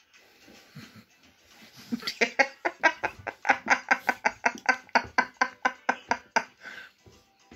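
A person's voice laughing in a rapid, even run of about five pulses a second, lasting about four seconds.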